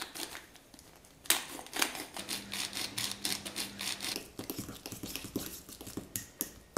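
Hand pepper grinder grinding black pepper: a rapid run of dry clicks and crunches that starts about a second in, with a fork stirring in a ceramic cup near the end.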